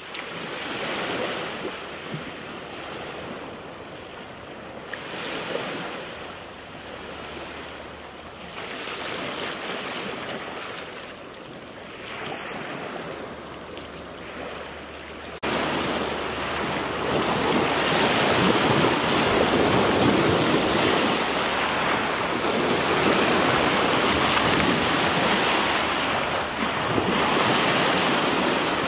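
Small sea waves lapping and breaking on a stony shingle shore, the wash swelling and ebbing every few seconds. About halfway through it turns louder and more continuous as little breakers wash over the stones and rocks.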